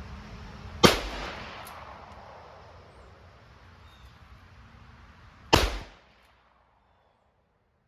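Two shots from a .327 bird's-head single-action revolver firing round-ball loads, about four and a half seconds apart, each a sharp crack, the first with a short ringing tail.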